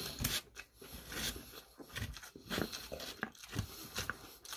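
Close-miked eating sounds: irregular wet mouth clicks and smacks of chewing, with chopsticks picking at food in a styrofoam takeout box.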